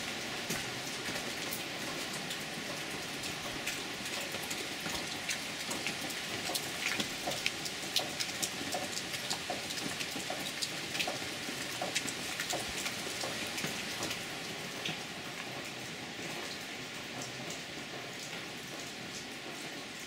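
Water dripping and pattering: many small, irregular ticks over a steady hiss, thickest in the middle.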